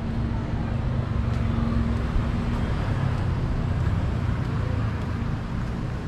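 Street traffic: a motor vehicle's low, steady engine rumble and hum, a little louder from about a second in until about four seconds.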